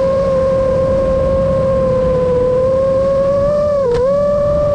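Brushless motors and propellers of an iFlight Nazgul5 Evoque 5-inch FPV quadcopter whining at a nearly steady pitch over a low rushing noise, with a brief dip in pitch and quick recovery about four seconds in.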